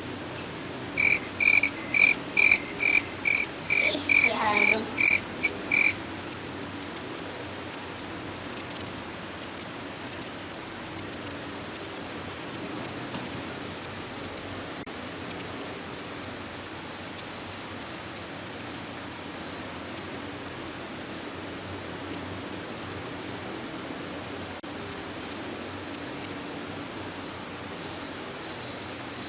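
High-pitched insect chirping: evenly spaced chirps about twice a second, then a higher, almost continuous trill from about six seconds in. A brief falling sweep comes near four seconds.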